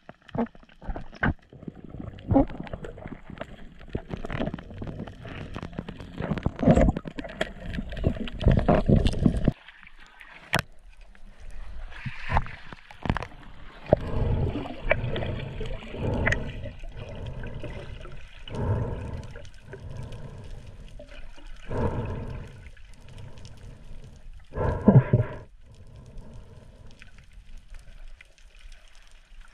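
Muffled underwater bubbling and water movement picked up by a camera in a waterproof housing, coming in irregular swells and bursts as divers swim.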